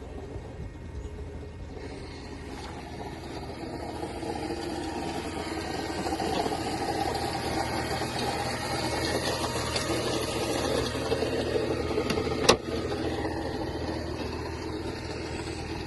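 Mercedes-Benz E 350 engine running steadily, carrying a noise the owner cannot identify. It grows a little louder over the first few seconds, and a single sharp click stands out about twelve seconds in.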